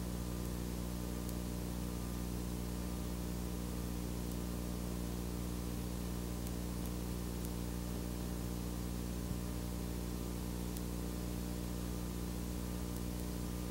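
Steady electrical hum with hiss, unchanging throughout, with a few faint clicks; no other sound.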